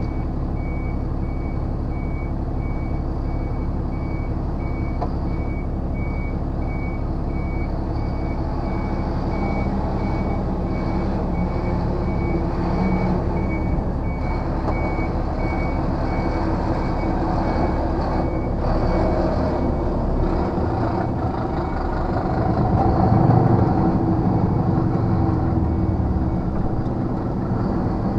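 A reversing alarm beeping steadily at an even pace over the steady running of a lorry engine, heard from inside the cab; the beeping stops about two-thirds of the way through, and the engine gets louder for a few seconds near the end.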